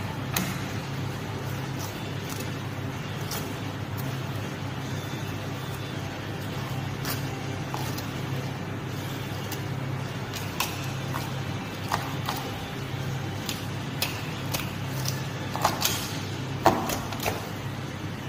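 Steady low machine hum, with scattered short knocks and taps of a knife and a fish being worked on a plastic cutting board, coming more often in the last few seconds.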